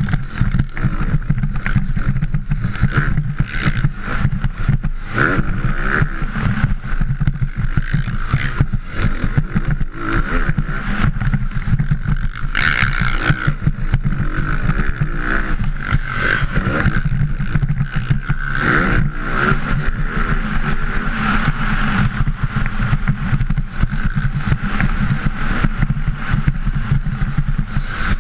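Motocross bike's engine running hard at racing speed, picked up by a camera on the rider's helmet: a loud, steady drone broken up by constant jolts.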